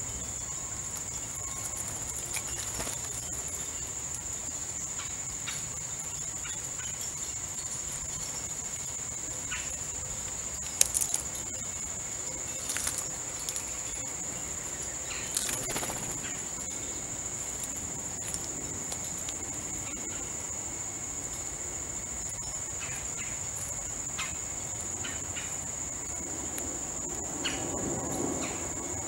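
Insects calling in a steady high-pitched drone, with a few short sharp taps over it, the loudest about eleven seconds in.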